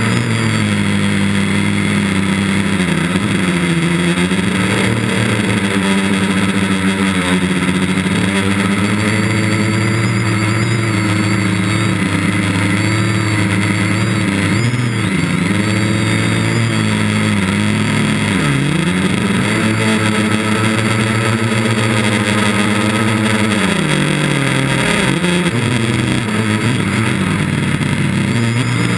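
Gaui quadcopter's electric motors and propellers droning, heard close from the camera on board. The pitch wavers up and down as the motor speeds change, with a few sharp dips.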